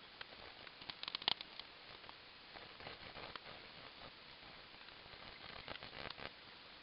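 Faint scratching and rubbing of colour being drawn and smudged by hand on paper, with a quick cluster of small clicks and crackles about a second in and more rubbing strokes near the end.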